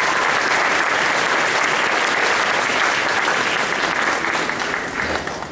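Audience applauding steadily, a dense clapping that starts to die down near the end.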